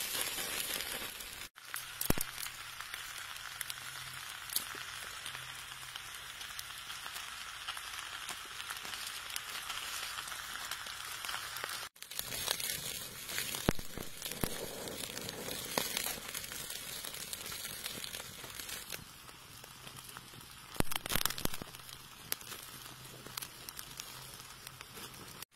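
Offal sizzling on a hot stone slab over an open wood fire, with the fire crackling in scattered sharp pops. The sound breaks off abruptly twice.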